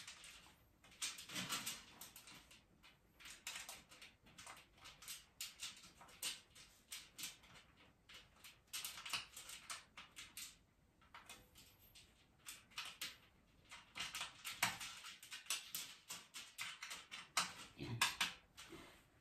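Faint, irregular clicks, taps and rustling from the metal parts of a mesh trolley being handled and fitted together during assembly.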